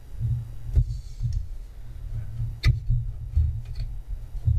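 Dull low thuds and a few sharp clicks as a computer case and the optical drive in its bay are handled and shifted while the screw holes are lined up.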